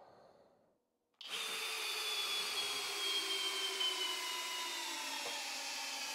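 Flex FX1271T 24V brushless hammer drill in low speed, turbo off, driving a long lag screw into stacked pine boards through a socket and torque adapter. The motor starts about a second in and runs steadily, with a whine that slowly falls in pitch as the screw goes deeper.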